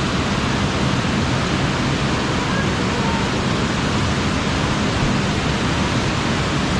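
Waterfall pouring into a pool: a steady, loud rush of falling water.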